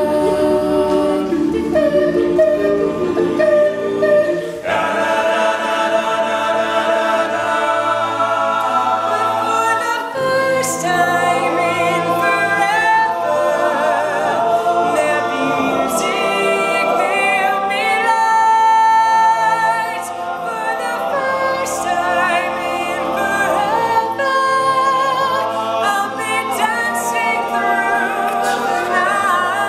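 All-male a cappella group singing in close harmony, with a lead voice over sustained backing chords and a low bass line. The harmony fills out and grows brighter about four and a half seconds in.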